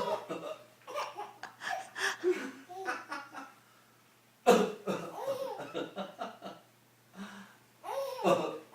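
Baby laughing in repeated short bursts. About halfway through a sudden loud cough sets off another run of laughter.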